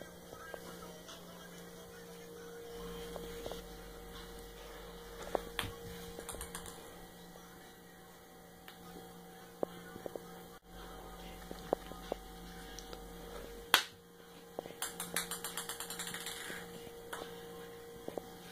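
Steady low electrical hum with scattered light clicks and knocks. About fourteen seconds in comes one sharp click, followed by a quick run of ticks lasting a couple of seconds.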